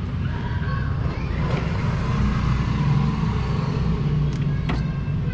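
Steady low rumble of a motor vehicle's engine running, with faint voices in the background and a few light clicks near the end.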